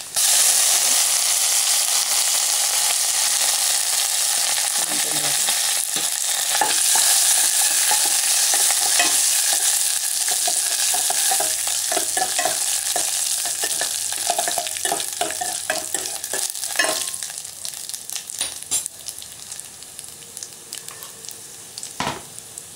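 Hot oil in a stainless steel pot bursts into a loud sizzle as dried red chillies and curry leaves go into the tempering of mustard seeds and chana dal. It crackles and spits while being stirred, then slowly dies down near the end.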